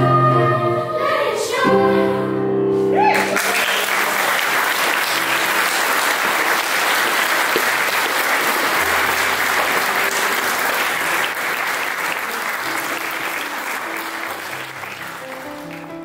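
A choir singing, broken off about three seconds in by an audience applauding; the applause slowly fades away while soft music with held low notes plays underneath.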